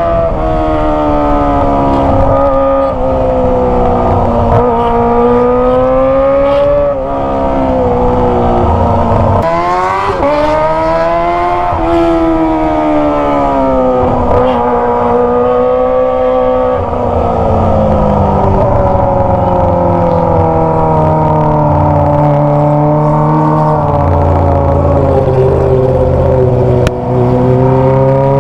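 Kawasaki ZX25R's 250 cc inline-four engine through a Toce aftermarket exhaust, revving up and dropping back several times, its pitch rising and falling. From about 17 seconds in it holds a lower, steadier note.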